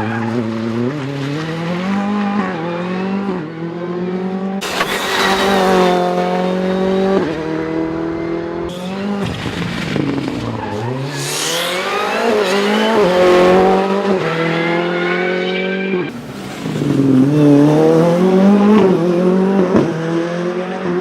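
Ford Fiesta R5 rally car's turbocharged four-cylinder engine revving hard, its pitch repeatedly climbing through the gears and dropping on shifts and lifts, over several short passes cut together.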